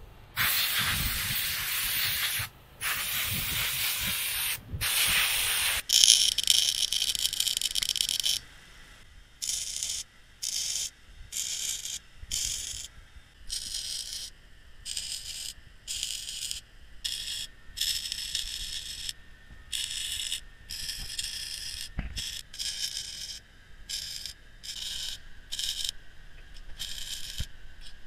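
Electric arc welding on steel roller chain: a few seconds of steady crackling hiss from the arc, then a series of short bursts, each under a second, as the links are tack-welded together.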